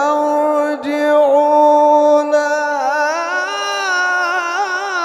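Male Quran reciter chanting in melodic tajweed style, drawing out one long vowel. About three seconds in, the pitch rises into quick wavering ornaments.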